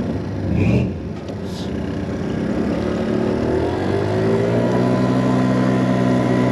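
Wolf Islander scooter's small engine running under way, easing off about a second in, then picking up speed with a rising pitch and settling into a steady cruise.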